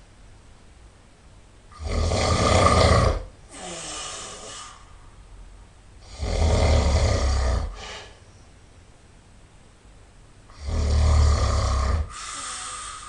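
A person snoring loudly: three snores about four and a half seconds apart, each lasting about a second and a half and followed by a quieter breath.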